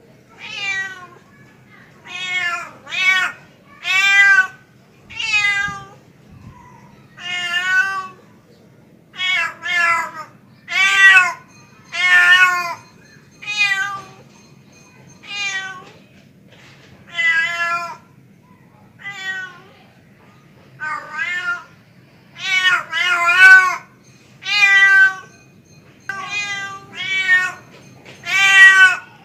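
Tom cat giving a long series of meows, one call every second or two, each rising then falling in pitch: a male's mating call to a female.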